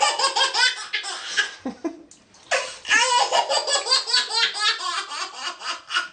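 A baby laughing hard in rapid, high-pitched runs of giggles, in two long stretches with a short break about two seconds in.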